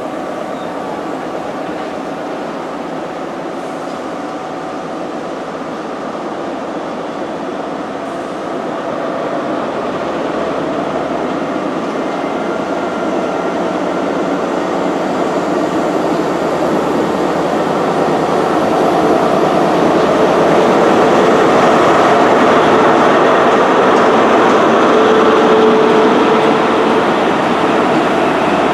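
High Speed Train (InterCity 125) moving slowly out, its Mark 3 coaches rumbling along the track. The sound grows steadily louder over the second half as the rear diesel power car draws near.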